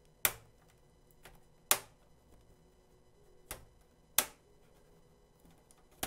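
Plastic snap clips of an HP Pavilion laptop's top case (palmrest) popping loose as the case is pried up by hand along its edge. There are four sharp snaps spread over a few seconds, with a fainter click between the first two.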